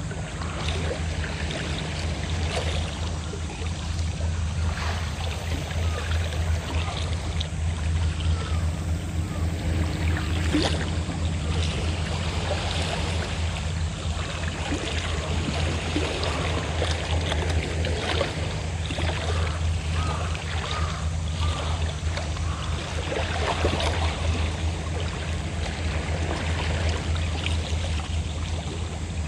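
Fishing boat engine running steadily with a low, even drone, over the wash and splash of sea waves.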